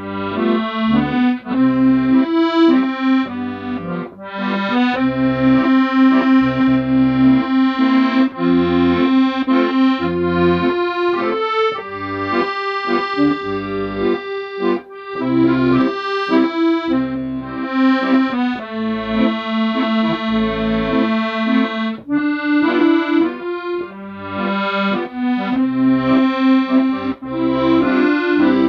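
Accordion playing a slow melody in held, reedy notes over low bass notes and chords, in phrases that swell and pause briefly.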